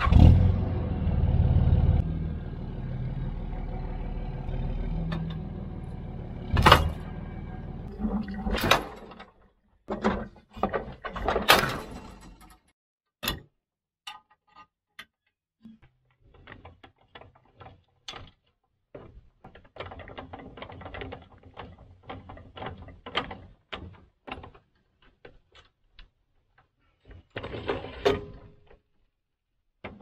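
A pickup truck's engine runs steadily for the first several seconds and then stops, followed by a few loud metal clanks. Then comes a long run of quick clicks and rattles as a hand crank winds the portable sawmill's jack stands.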